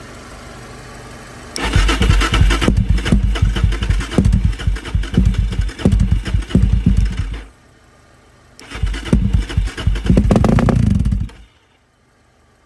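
A 2002 Suzuki DR-Z400E's single-cylinder engine being cranked by its electric starter in two long, rhythmic chugging runs, the first about six seconds and the second about two and a half, without catching: the bike won't start.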